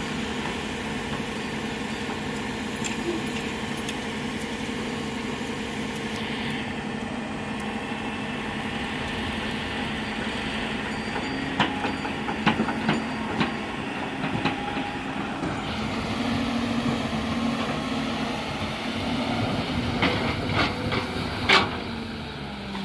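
Hyundai Robex 210-7 excavator's diesel engine running steadily, with a few sharp metallic clanks a little past the middle and a few more near the end.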